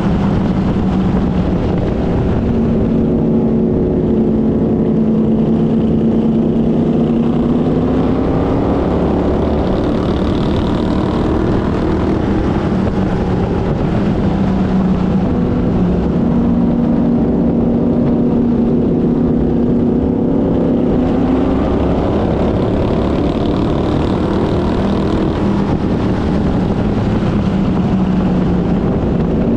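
Race car engine running hard, heard from an onboard camera. The pitch climbs and drops back in long repeated swings, accelerating and easing off lap after lap. Steady road and wind noise runs beneath it.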